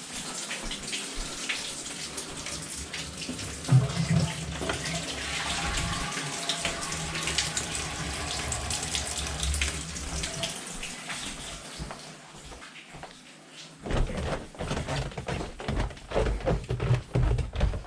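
Water running from a tap into a sink as the taps are checked. Near the end it gives way to a run of knocks and thuds.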